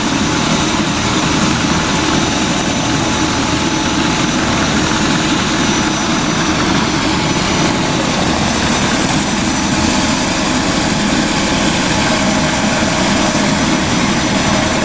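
Light turbine helicopter running close by, hovering near the ground: a steady, loud rotor and turbine noise with a rapid blade flutter.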